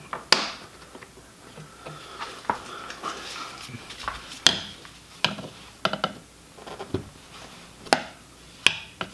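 Irregular sharp clicks and taps, about seven of them, from a screwdriver and gloved hands working against the plastic fog-light housing and bumper trim.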